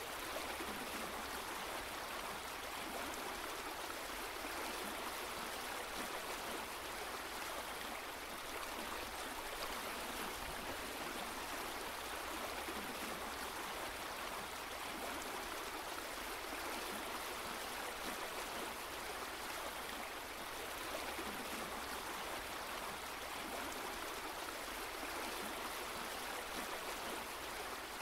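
Flowing stream water: a steady, even rushing.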